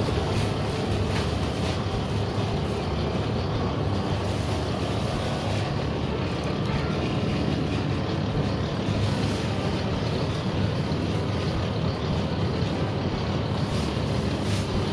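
Motor-driven noodle machine running steadily, a constant low mechanical drone.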